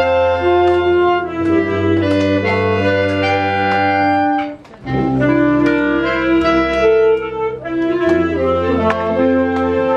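School wind band of clarinets, flutes, saxophones, French horn and euphoniums playing a tune in held chords over a low bass note. The band stops for a moment about halfway through, then comes back in.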